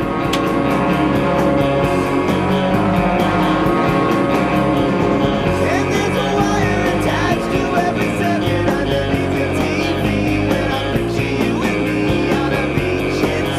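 Upbeat rock-style music with electric guitar over a steady beat.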